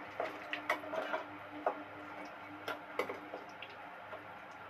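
Light, irregular clicks and taps of a metal slotted spatula against an iron kadai and a steel bowl as fried fish pieces are lifted out of the oil.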